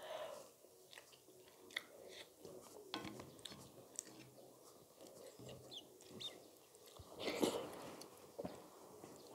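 A person chewing a mouthful of rice and chicken curry, with wet mouth smacks and small clicks, while fingers mix rice into the gravy on a plate. A louder wet burst comes about seven seconds in.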